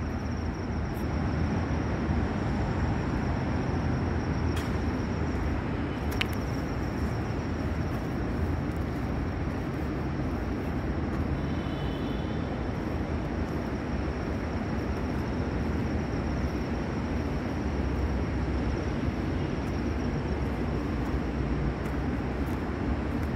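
Steady low rumbling background noise with a few faint clicks, no distinct machine or engine rhythm standing out.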